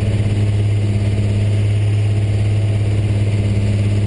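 First-generation Cummins 5.9 L inline-six turbo diesel with a P-pump, heard from inside the cab of the truck on a chassis dyno, running at a steady speed: an even, unchanging drone with no rise in pitch.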